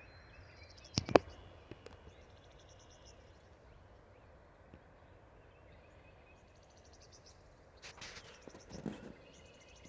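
Faint birdsong in repeated short high trills over a quiet rural background, with two sharp clicks about a second in and some rustling near the end.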